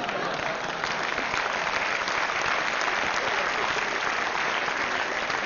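A large audience applauding: steady, dense clapping.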